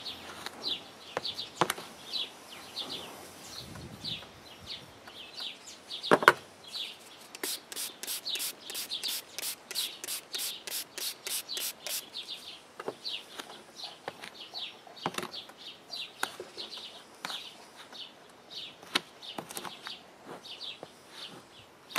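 Metal spoon stirring dry, crumbly groundbait in a plastic tray, with occasional knocks of the spoon against the tray; the loudest knock comes about six seconds in. Short high chirps repeat two or three times a second throughout, and a fast high ticking runs for a few seconds in the middle.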